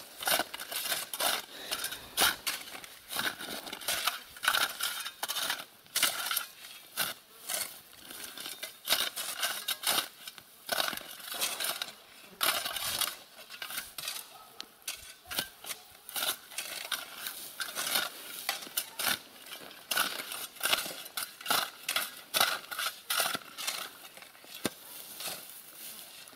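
Irregular crunching and scraping of long-handled hand tools working gravelly roadside soil, many short crunches and clicks in an uneven rhythm.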